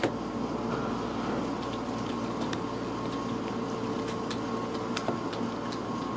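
Steady room hum with a few faint clicks and taps of glossy trading cards being handled and flipped through, one slightly sharper tap at the very start.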